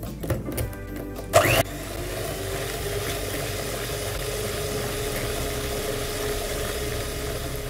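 Electric hand mixer starting with a short loud burst about a second and a half in, then running steadily with an even hum as its beaters whisk a liquid egg-and-sugar batter in a plastic bowl. A few light knocks come before it starts.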